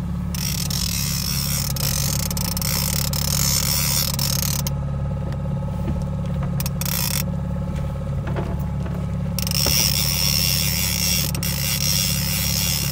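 Mercury outboard motor running steadily at trolling speed, a constant low hum, with a hiss of wind and water that fades out and comes back.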